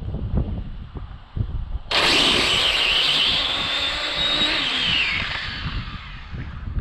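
RC drag car's brushless electric motor on a 4S battery making a full-throttle pass: a high whine cuts in suddenly about two seconds in, holds steady, then drops in pitch as the car lets off and fades into the distance. Wind buffets the microphone before the launch.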